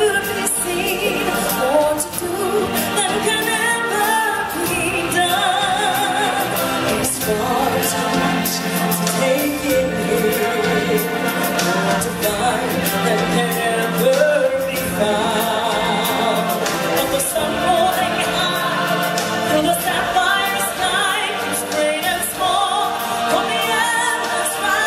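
Stage-show music with a group of voices singing, the sung lines wavering with vibrato over steady accompaniment.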